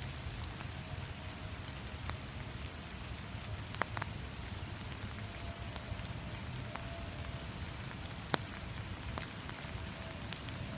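Steady rain falling on a handheld umbrella overhead, with a few sharper ticks of heavier drops, the loudest about four and eight seconds in.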